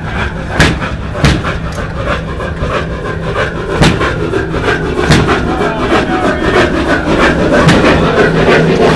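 Large single-cylinder stationary gas engine running, its exhaust giving sharp reports about once or twice a second over a steady low hum of the running machinery.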